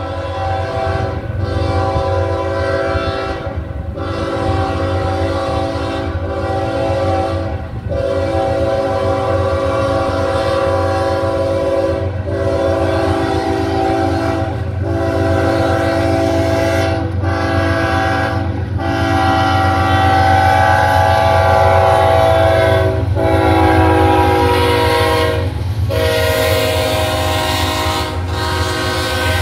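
Diesel freight locomotive's multi-tone air horn sounding a series of long blasts with short breaks every few seconds, warning road crossings, over the steady low rumble of the locomotives. The sound grows louder as the train draws near, and the locomotives pass close by near the end.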